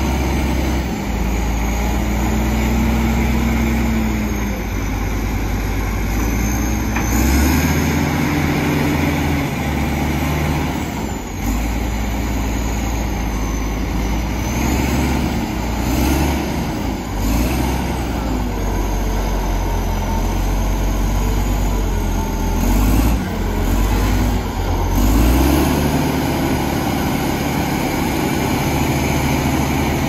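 Heavy diesel engine of earthmoving or logging machinery running under load, its note rising and falling repeatedly as it is revved and eased off.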